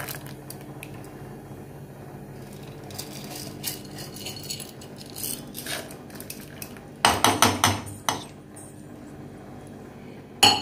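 Steel tumbler knocked against an aluminium pressure cooker to empty it of wheat, with light metal clinks early on and a quick run of about six sharp clinks around seven seconds in. One more sharp metal clink near the end.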